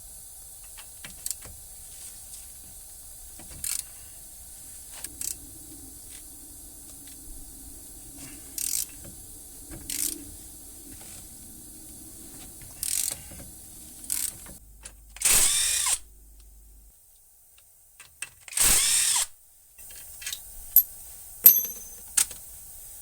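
Half-inch ratchet clicking in short spurts as the hub assembly's mounting bolts are turned out, with two longer, louder runs of ratcheting past the middle.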